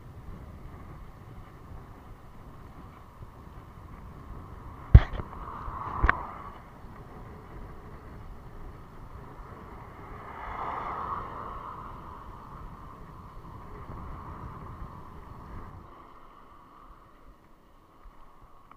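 Wind buffeting the microphone and road noise from a bicycle riding on asphalt, a steady rushing that fades somewhat near the end. Two sharp knocks about five and six seconds in.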